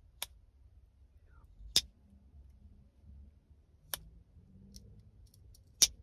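A Rough Ryder Tater Skin Moose slipjoint pocket knife's blades snapping as they are worked through the half stops: four sharp clicks about one and a half to two seconds apart, with a few faint ticks just before the last one.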